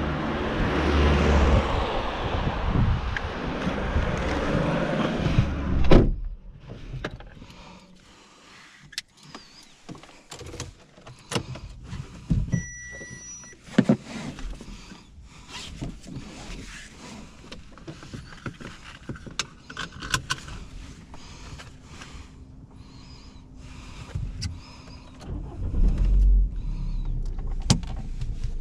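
Wind noise on the microphone, cut off about six seconds in by the car door slamming shut. Then come scattered small clicks and a short electronic beep inside the quiet cabin. Near the end the Audi A3's 1.6 FSI four-cylinder petrol engine starts with a low rumble and idles.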